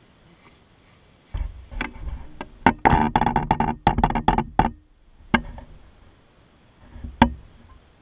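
Handling noise on the camera as it is panned: a run of rubbing knocks and rattles lasting about three seconds, then two single sharp clicks.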